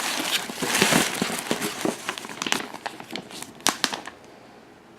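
Cardboard and plastic packaging of a Funko Pop box crinkling and crackling with sharp clicks as it is handled and opened. It stops about four seconds in.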